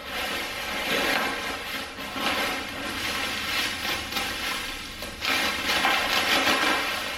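Bubble wrap crinkling and rustling as a long wrapped bar is lifted out of a cardboard box and handled.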